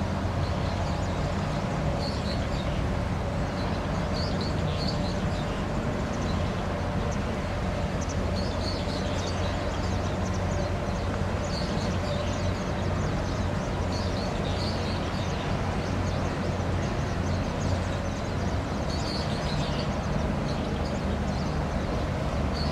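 Steady low drone of a passing cargo ship's engine, with short high chirps every few seconds.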